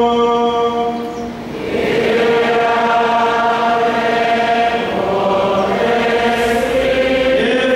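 Sung liturgical chant in long held notes, with a short dip about a second in.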